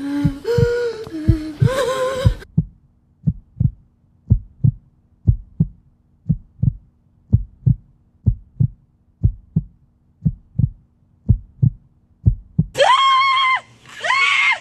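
Heartbeat sound effect: paired low thumps, lub-dub, about once a second over a faint steady hum. It opens with the tail of a wavering pitched sound, and a loud, high, wavering wail cuts in near the end.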